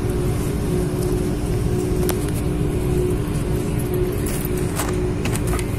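Steady cabin noise inside an Airbus airliner on the ground: a low rumble with a constant two-note hum, and a few faint clicks near the end.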